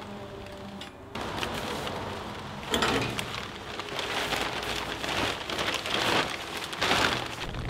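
Rain beating down on a plastic tarp. It gets louder about a second in, then swells in several loud rustling surges as the tarp is pulled about.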